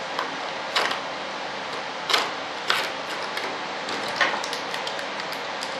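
Sharp clicks and knocks of a model jet part being handled and set against a workbench: about four louder ones spread through, with lighter ticks between, over a steady background hiss.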